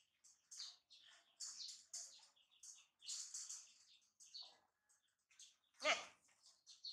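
Small birds chirping: many short, high-pitched calls in quick succession, with one louder call sliding down in pitch about six seconds in.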